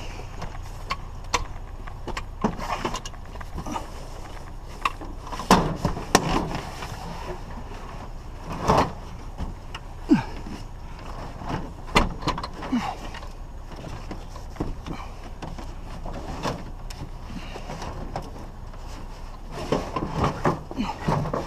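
Irregular knocks, clunks and short scrapes of scrap items, including a heavy TV, being handled and loaded into a vehicle, over a steady low rumble.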